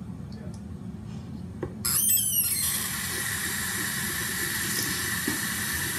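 A sink tap is turned on about two seconds in, giving a brief high squeal as the water starts. Water then runs steadily from the tap with an even hiss.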